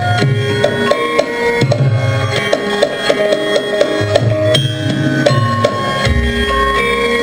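Javanese gamelan music accompanying a dance: metallophones play held notes over frequent hand-drum strokes, and a deep low note comes in about six seconds in.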